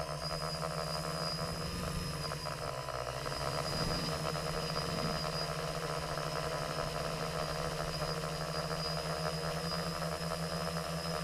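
Multirotor drone's electric motors and propellers running in flight, a steady hum with a thin high whine above it, heard through the camera carried on the drone.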